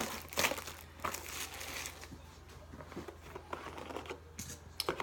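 Crinkling of a foil trading-card pack wrapper and cards being handled, busiest in the first two seconds and then softer, with a few light ticks.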